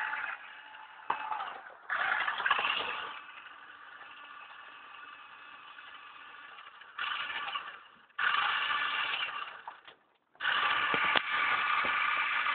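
Toy RC car's small electric motor whining in several bursts of a second or two, with quiet gaps between, as the car drives and stops, along with light rattles and scrapes from the car.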